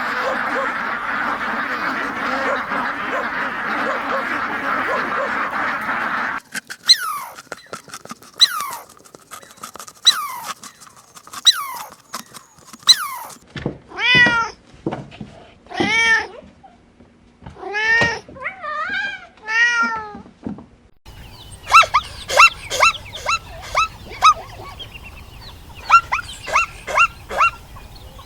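Cat meowing: a series of separate pitched calls that rise and fall, about one every second or two. It is preceded by several seconds of steady noisy hiss and short high squeaks, and followed by a run of quick high chirps.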